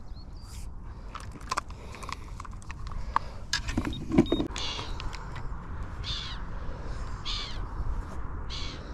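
Clicks and knocks of fishing tackle and a bait bucket being handled, over a low rumble of wind on the microphone. The loudest knock comes about four seconds in. After it come short rasping sounds, about one every second and a half.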